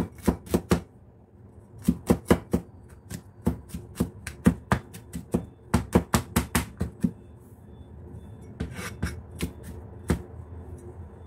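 Chinese cleaver chopping garlic on a plastic cutting board: quick repeated strokes, with a short pause about a second in, growing sparser after about seven seconds.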